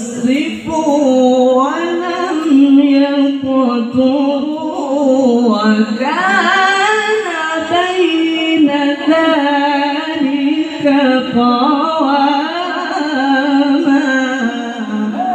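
A man's solo voice reciting the Qur'an in melodic tilawah style into a handheld microphone, held ornamented phrases sliding up and down in pitch with short breaks for breath.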